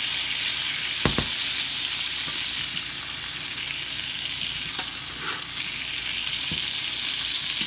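Thick steaks sizzling steadily as they sear in a hot skillet with butter and oil, with a single light knock about a second in.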